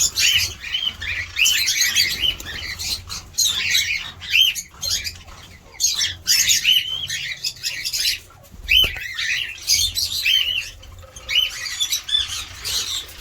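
A flock of cockatiels calling: a dense, overlapping chatter of short arched chirps and squawks, one after another without pause.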